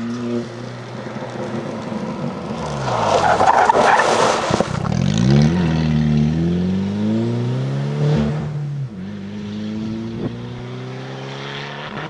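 SEAT rally car braking into a corner with its engine revs falling, its tyres scrabbling through dust at the road edge, then accelerating hard away with rising revs and an upshift about nine seconds in.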